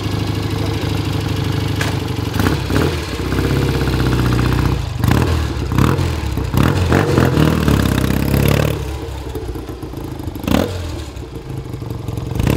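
1965 BSA Lightning 650's parallel-twin engine running as the bike pulls away; it grows quieter about nine seconds in as the motorcycle moves off.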